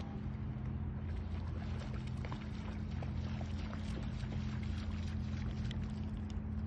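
A steady low hum, like a distant engine, under faint splashing from a Dogo Argentino wading through shallow sea water.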